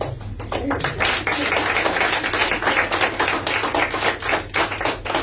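A small audience applauding, many hands clapping at once, thickest through the middle and thinning near the end.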